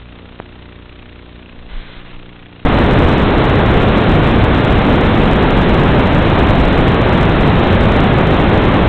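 Loud, steady static hiss from an FPV analog video link, cutting in abruptly about two and a half seconds in: the receiver has lost the quad's video signal. Before it, a faint steady hum with one small click.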